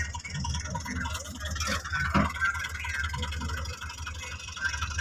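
Massey Ferguson 260 tractor's diesel engine running under load as it tows a trailer heaped with soil over loose dirt, with a steady low engine beat.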